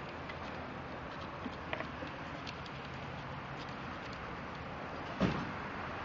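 Faint crinkles and taps as foil tape is pressed down by hand, over a steady background hiss, with one sharp knock about five seconds in.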